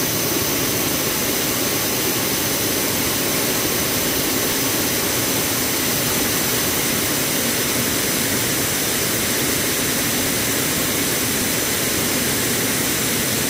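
Steady, unbroken rush of a wide waterfall pouring over a ledge into a churning pool.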